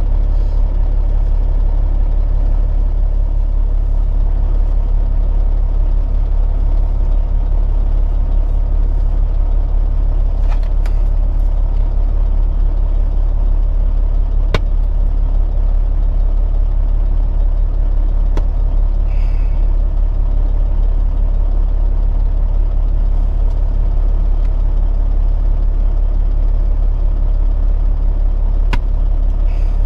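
Peterbilt 379 semi truck's diesel engine idling steadily, heard from inside the cab, with a single sharp click about halfway through.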